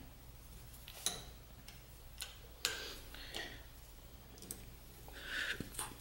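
A few faint, irregular metallic clicks from hand tools on the mill table's end mount bracket as its M6 socket head screws are loosened, with a short scrape a little after five seconds.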